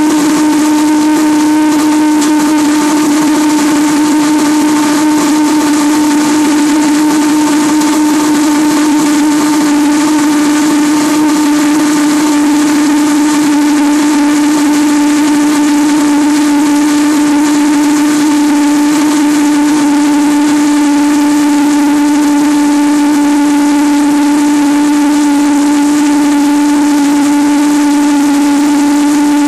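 Small propane-fuelled valveless pressure jet (a type of pulsejet) running steadily at full heat. It makes a loud, unbroken drone on one steady pitch with a rushing hiss over it.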